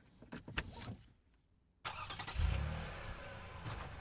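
A couple of sharp clicks, then a brief dead silence, then a combustion car engine starts about halfway through and runs with a steady low drone.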